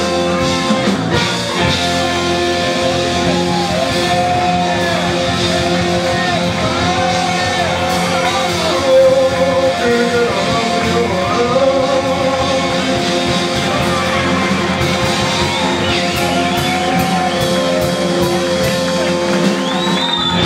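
Live blues-rock band playing: electric guitar and band with a singer's voice wavering over sustained notes.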